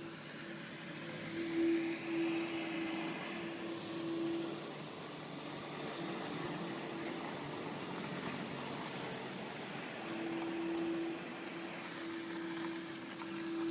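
A strange droning hum heard from the sky: one steady low tone that fades out for a few seconds midway and then returns, over a broad rushing noise that swells early and slowly dies away.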